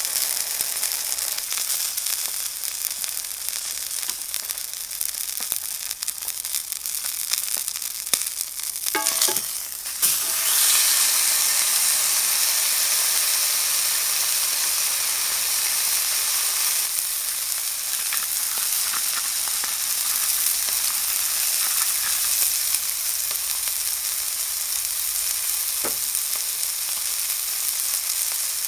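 Grass-fed Angus steak sizzling as it sears in a hot pan, a steady crackling hiss of fat and juices frying. About ten seconds in the sizzle briefly breaks, then comes back louder and brighter.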